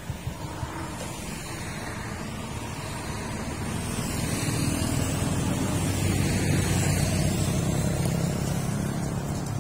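Motor vehicle running with road noise, growing louder through the middle few seconds and easing a little near the end.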